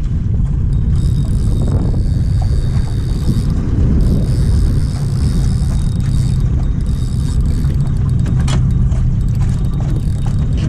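Boat's outboard motor running steadily at trolling speed, a low rumble, with a higher whirring that comes and goes.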